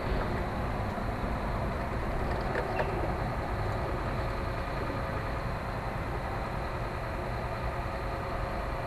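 Steady low rumbling drone with a few faint constant tones above it. It is an unexplained hum heard periodically over the city, which the recorder wonders may be industrial noise.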